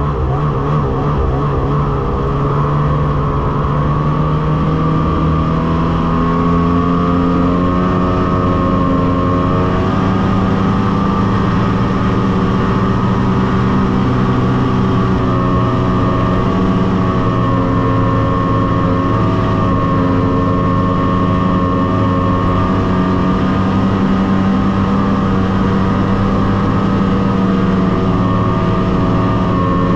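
Snowmobile engine running steadily at cruising speed, its pitch wavering slightly, while it tows a loaded trailer through deep snow.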